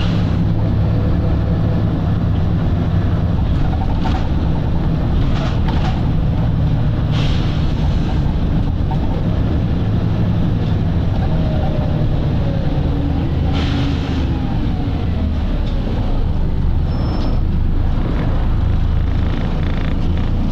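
Volvo B7RLE bus engine running with a steady low drone, its pitch sliding around the middle of the stretch. It is broken by several short hisses of compressed air from the bus's air system.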